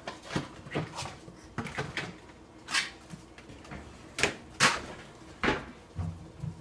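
A string of short knocks and rattles as food containers are handled and moved about in a refrigerator.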